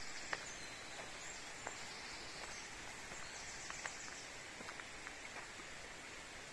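Steady rush of a nearby stream and waterfall, with light footsteps on a dirt path and a few faint bird chirps.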